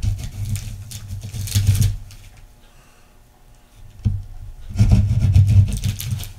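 A hand blade scraping and rubbing as it cuts a soft plastisol worm lure out of paper on a tabletop, in two spells of about two seconds with a quieter gap between.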